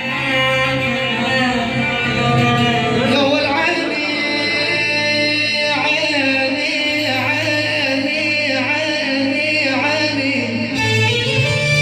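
Music: a singing voice over plucked string instruments, the voice wavering and ornamented.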